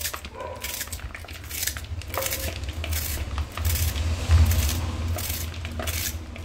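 Knife blade scraping the ridged skin off a bitter gourd (karela) in repeated short strokes.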